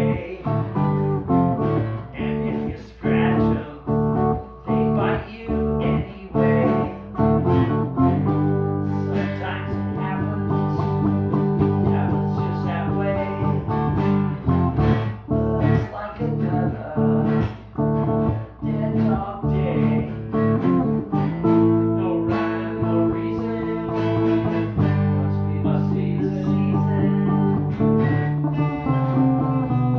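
Stratocaster-style electric guitar strummed: short, clipped chords for about the first eight seconds, then chords left to ring.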